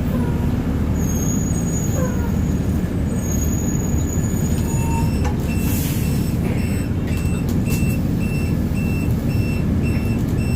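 TransJakarta bus engine running with steady traffic rumble, a short air hiss from the brakes about six seconds in, then a regular warning beep about twice a second.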